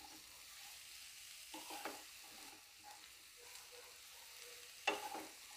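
Wooden spatula stirring and turning chopped radish leaves in a frying pan, with a faint sizzle of the vegetables frying underneath. Short scraping strokes come now and then, the sharpest near the end.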